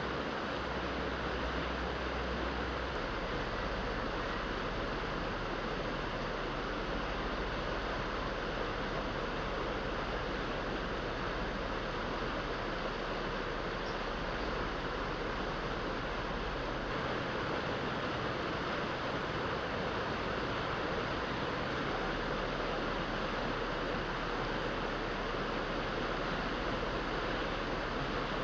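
Steady rushing noise of flowing water, unbroken and even.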